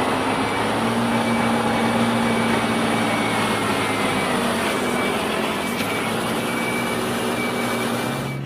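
A heavy Mercedes-Benz multi-axle dump truck's diesel engine running steadily as it drives over gravel, with a thin high whine coming and going.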